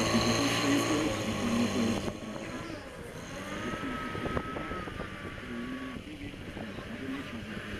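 Portable fire pump engine running hard, its pitch wavering, then dropping off sharply about two seconds in as the water jets die away; quieter, rougher running follows.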